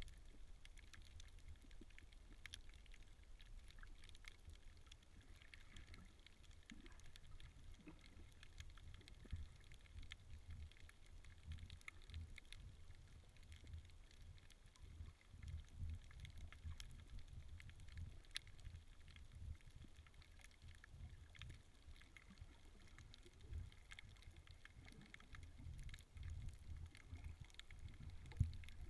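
Faint, muffled underwater sound: a low, uneven rumble of moving water with scattered faint clicks.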